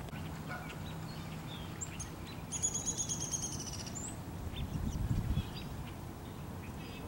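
A small songbird singing a rapid, high trill of evenly repeated notes lasting about a second and a half, among scattered short chirps. A brief low rumble comes about five seconds in.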